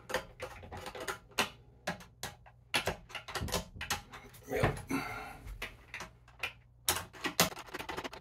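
Irregular clicks and knocks of a screwdriver and fingers working the plastic hinge mounts of a toilet seat on a ceramic bowl, as the mounting screws are tightened.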